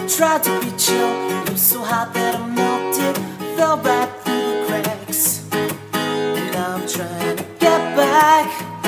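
Background music led by strummed acoustic guitar, with what may be a voice singing over it near the end.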